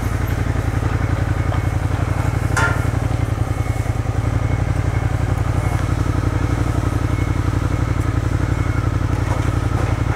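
Suzuki Gladius 400's V-twin engine running steadily at low revs, with no revving, and a single brief knock about two and a half seconds in.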